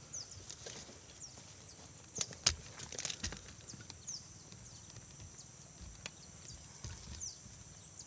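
Birds giving short, high, falling chirps every second or so over a steady high insect drone. A cluster of sharp knocks and clicks comes between about two and three seconds in, the loudest at about two and a half seconds.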